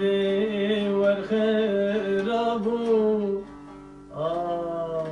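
A man sings a long, held, wavering note of a Kurdish folk song over a plucked bağlama (saz). The voice breaks off a little past three seconds, and a new, lower note starts about a second later.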